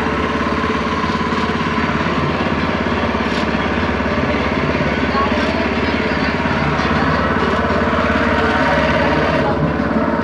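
A motorboat's engine running steadily at a constant speed with a fast, even chug.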